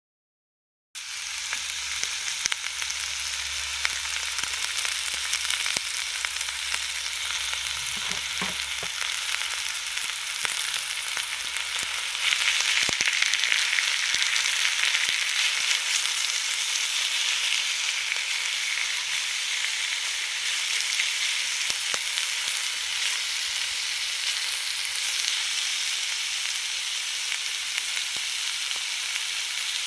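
Food sizzling on a hot grill, a steady hiss with scattered small pops. It starts about a second in and grows louder around the middle.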